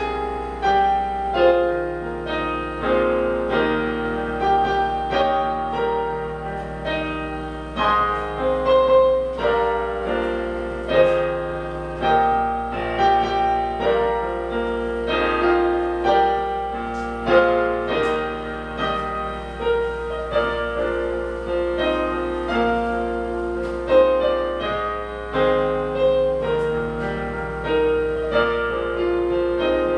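Piano music: a steady flow of struck notes and chords, each one dying away.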